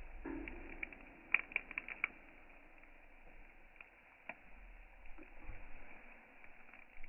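Faint handling sounds of cut orange pieces on a steel tray: a quick run of about five sharp clicks a little over a second in, then a few single ticks.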